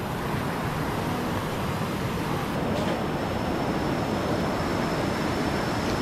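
Steady rush of river water pouring over rapids, swollen by rainy-season high water. A faint, thin high whine joins about two and a half seconds in.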